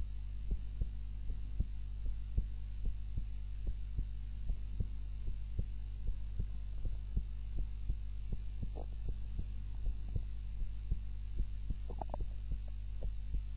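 A sleeping woman's heart beating steadily, a regular train of soft thumps over a low steady hum. She is lying on her back.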